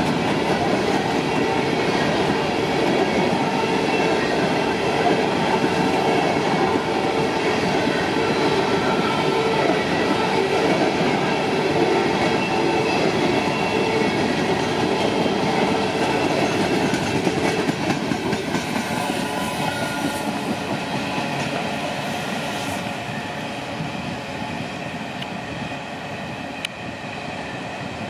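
Empty coal hopper cars of a freight train rolling past, their wheels clacking over the rail joints, growing fainter over the last ten seconds as the train moves away.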